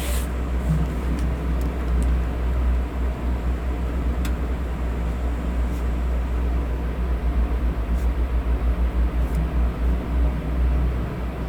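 Electric fan running: a steady low rumble with a hiss above it, the low part fluttering unevenly as the airflow buffets the microphone. A few faint ticks sound over it.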